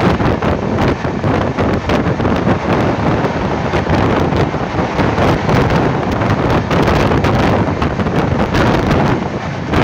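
Ramnagar–Bandra Terminus superfast express running through a station at speed, heard close up: a steady loud rush of wind buffeting the microphone over the rumble and rapid clatter of wheels on rail.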